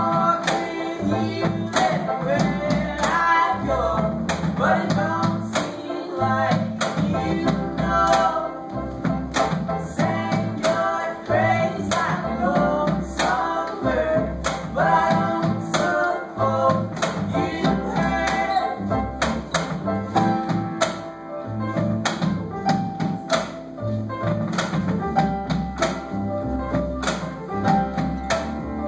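Live acoustic band playing a song: acoustic guitar and upright double bass with regular sharp percussive hits on the beat, and a singing voice over them.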